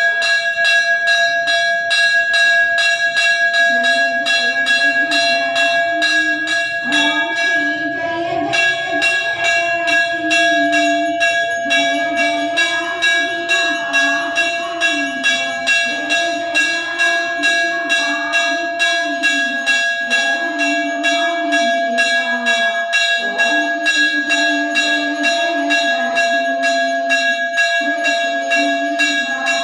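Temple bell rung rapidly and steadily, with its ringing tones held throughout, accompanying the lamp aarti offered to the deity.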